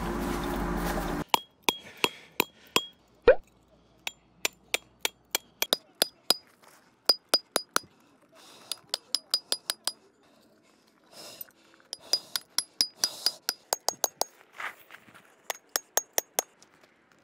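A steady rumble with a hum cuts off about a second in. Then metal tent pegs are hammered in: runs of sharp, ringing metallic clinks at about four strikes a second, the pitch of the ring differing from one run to the next.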